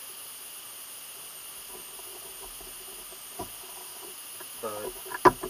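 Quiet handling of needles, black waxed thread and a leather sheath during hand saddle-stitching, with a single small click about three and a half seconds in. Near the end a voice starts and two sharp clicks sound.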